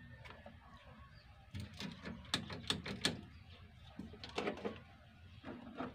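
Light clicks and taps of plastic wiring connectors and wires being handled, in several quick clusters.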